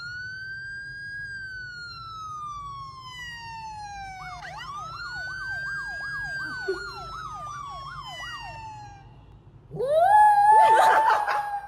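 Siren-like wailing tone played from a smartphone: one long rise and slow fall, then a second wail with a fast warble over it. About ten seconds in, the small white curly-coated dog howls along, louder than the siren.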